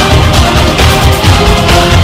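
Loud background music with a heavy, pulsing low end.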